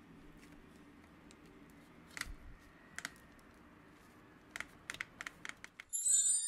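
Hands breaking apart a clump of beech (shimeji) mushrooms over their plastic tray, giving a few sharp, crisp snaps and clicks: two single ones, then a quick run of about six some four and a half seconds in. Music starts just before the end.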